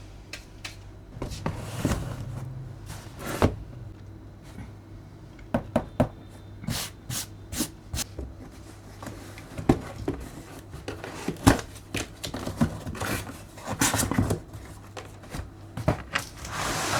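Small objects being handled by hand: a series of irregular light taps, clicks and knocks with some scraping and rubbing, including a longer rustling scrape near the end.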